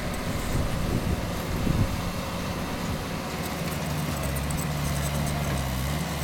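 Bobcat T190 compact track loader's diesel engine running steadily as the machine works into a dirt bank. A steady low engine hum settles in about halfway through.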